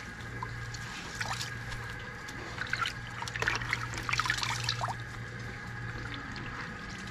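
Water dripping and trickling into a plastic bowl as washed pumpkin flowers are squeezed out by hand, with a steady low hum underneath.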